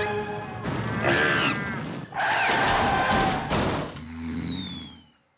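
Cartoon soundtrack of music and slapstick sound effects. A loud crash-like burst comes about two seconds in, and a thin falling whistle follows near the end before it all fades out.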